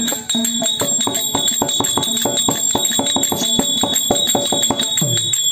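Terukoothu percussion accompaniment: a fast, even run of drum and cymbal strokes with jingling bells, over a steady high ringing tone.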